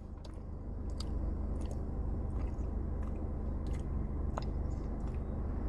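A person chewing a soft peanut butter and jelly Reese's peanut butter cup, with small mouth clicks, over a low steady hum.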